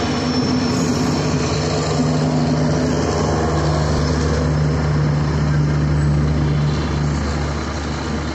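Diesel locomotive and train passing close by: a steady low engine drone over the rumble of wheels on rail. The drone fades near the end as the coaches roll past.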